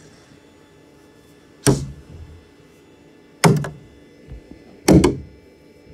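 Three loud bangs, each a sharp knock with a short ring after it, spaced about a second and a half apart.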